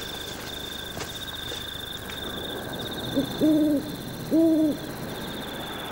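An owl hooting twice, about a second apart, each hoot short and even in pitch.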